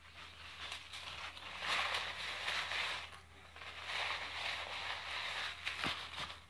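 Paper napkin rustling and crumpling as greasy fingers are wiped, in two longer spells with a few sharp crinkles.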